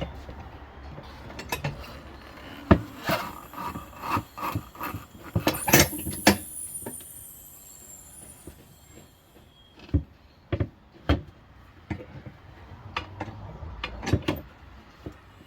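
Manual tire changer's bead breaker being levered against a tire's bead on a steel wheel: irregular knocks and clunks of metal and rubber, with a brief high falling squeak about six seconds in.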